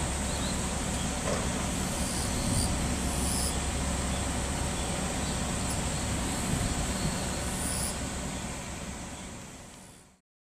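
JR 381 series electric train (a KuRo 380 cab car with three Yakumo cars) running slowly past on the depot tracks: a steady rumble and hum of wheels and motors that fades out near the end.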